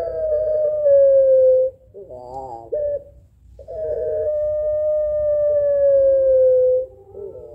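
Puter pelung, a long-calling domestic Barbary dove, calling: long held notes that slowly fall in pitch, one ending under two seconds in and another lasting about three seconds. Each is followed by a short wavering, warbling phrase.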